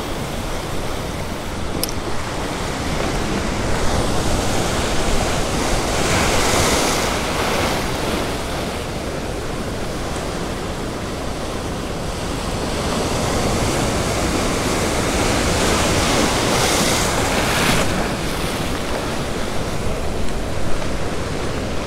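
Ocean surf breaking and washing over a rock ledge in a steady rush, swelling louder twice: about six seconds in and again around seventeen seconds in.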